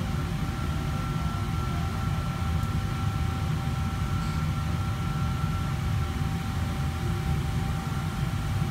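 Steady low mechanical drone of commercial kitchen machinery and ventilation, with two faint steady whines on top; the higher whine stops about six seconds in.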